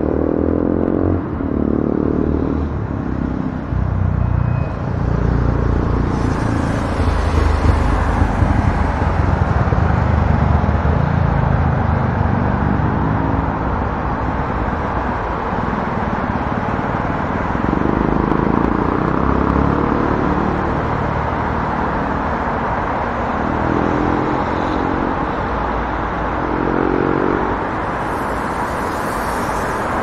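Busy city street traffic: a steady din of car engines and tyres, with several vehicles passing whose engines rise and fall in pitch.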